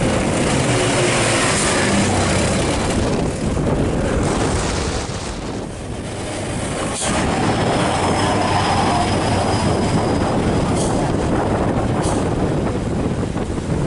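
Heavy truck running with loud road noise that dips briefly about five seconds in, with a faint high squeal in the middle.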